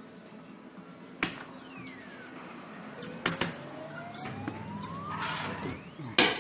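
Claw crane machine electronic sound effects: a quick falling tone, then a slow rising tone, over a steady machine hum. Several sharp clicks fall about a second in, twice in quick succession about three seconds in, and again near the end.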